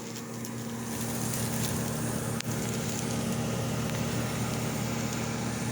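Vintage Mitchell automatic dehumidifier running: a steady hum from its large refrigeration compressor and fan, with a single faint tick about two and a half seconds in.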